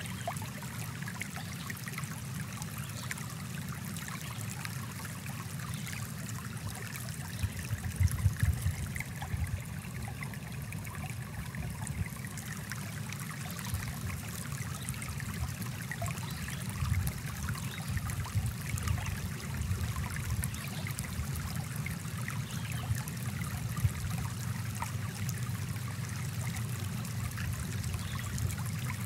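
Small stream running: a steady wash of flowing water, with a few louder low bumps about eight seconds in and again a little past halfway.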